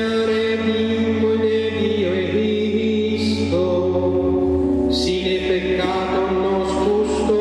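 A group of voices singing a slow, chant-like hymn with held notes that change every second or two.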